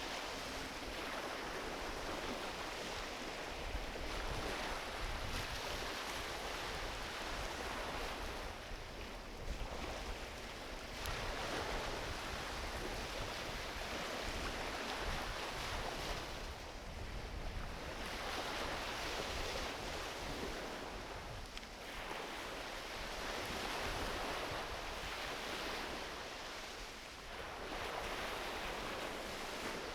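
Gentle ocean waves washing onto a beach, a steady rush of surf that swells and falls back every few seconds.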